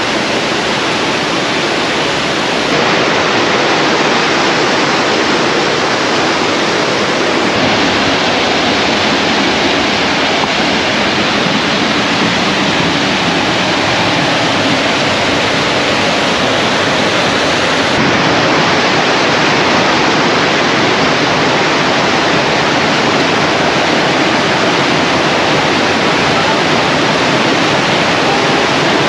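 Rocky river tumbling over boulders in small waterfalls and white-water rapids: a loud, steady rush of water that shifts slightly in tone a few times.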